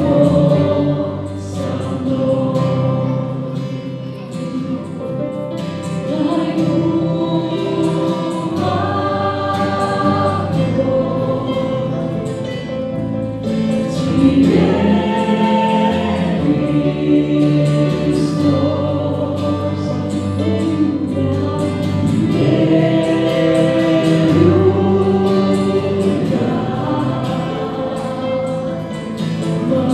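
Worship band playing a praise song: several voices singing together over keyboard, acoustic guitar and bass, with long held chords.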